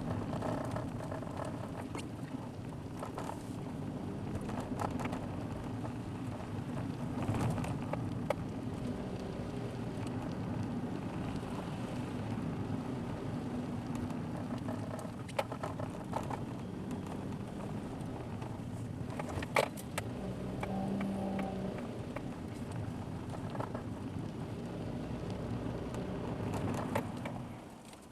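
A car driving, heard from inside the cabin through a dashcam: a steady engine hum and tyre noise, with a few sharp knocks and clicks. It gets quieter near the end.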